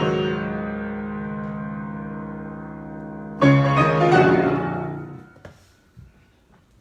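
Piano playing the closing chords of an improvisation: a held chord rings and slowly fades, then a last chord is struck about three and a half seconds in and dies away within two seconds. A few faint knocks follow near the end.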